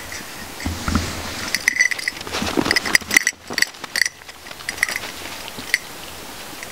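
Beagle's collar jingling as the dog moves: a run of light, irregular metallic clinks, each with the same short ringing tone, thickest in the middle of the stretch and thinning out toward the end.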